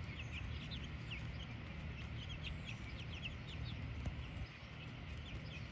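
Young chicks peeping, many short high chirps several times a second, over a low steady rumble.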